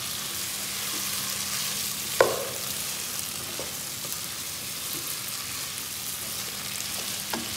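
Potato and carrot pieces frying in ghee and spice masala in a pot, sizzling steadily as a wooden spoon stirs and turns them. One sharp knock comes about two seconds in, with a few fainter clicks later.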